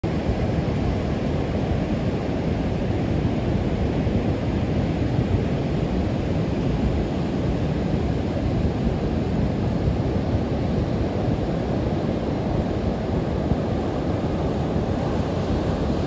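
Ocean surf breaking offshore in layered lines, a steady low rushing noise without distinct single crashes, with some wind buffeting on the microphone.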